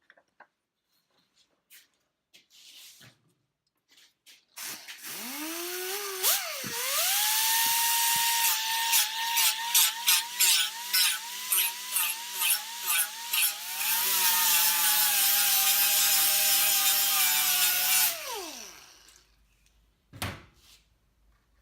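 Small angle grinder with an abrasive disc spinning up to a steady whine, then grinding the sharp edges off a broken speaker magnet, the pitch dipping about twice a second with each pass, before running steady and winding down as it is switched off. A single knock follows near the end.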